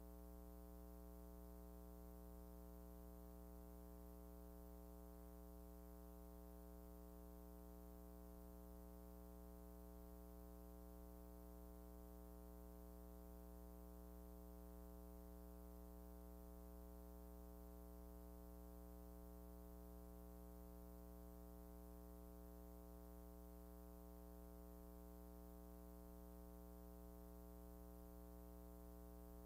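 Near silence: a faint, steady hum with many overtones that never changes.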